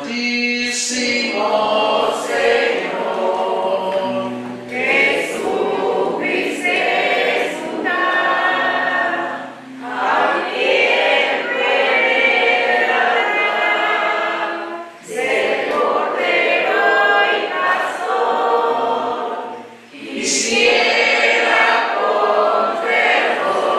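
A group of voices singing a hymn together, in sung phrases of about five seconds with short breaks between them.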